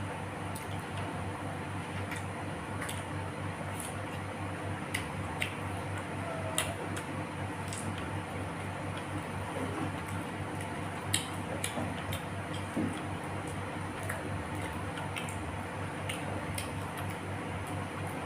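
Close-up eating sounds: scattered small clicks and wet smacks of someone chewing and handling food, over a steady low hum.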